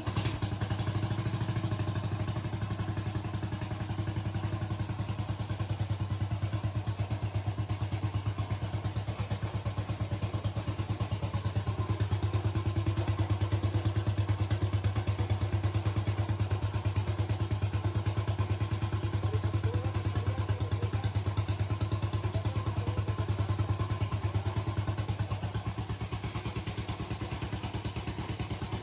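Diesel engine of a custom BSA M20 replica motorcycle, running at a steady idle as a fast, even knocking pulse, having started just before.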